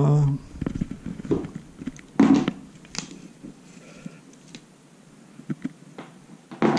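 Handling noise from a pried-apart plastic net handle and the net's metal frame: scattered light clicks and knocks, with a louder clatter a couple of seconds in.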